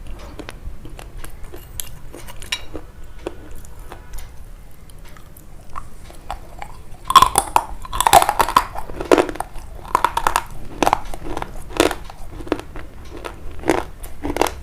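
Close-up crunching and chewing: faint small clicks at first, then from about halfway loud crunches roughly once a second.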